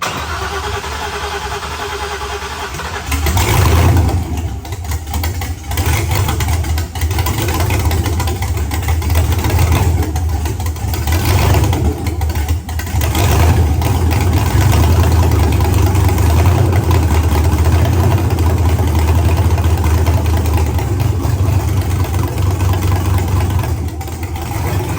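Freshly swapped LS 4.8 V8 in a Nissan 240SX being started for the first time: it turns over, catches and gets louder about three seconds in, is revved several times, then runs steadily.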